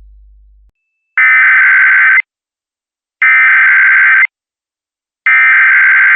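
Emergency Alert System SAME header: three identical bursts of screechy digital data tones, each about a second long and about two seconds apart. This is the coded header that opens an emergency alert broadcast.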